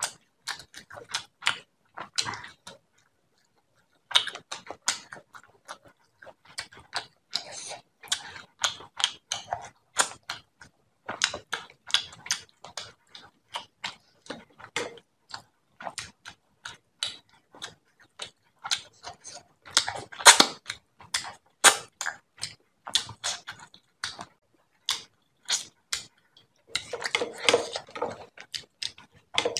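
Close-miked eating of rice and fish curry by hand: a rapid, irregular string of wet chewing and lip-smacking clicks, with a short pause a couple of seconds in. Near the end, fingers mixing rice and curry on a metal plate give a denser rustle.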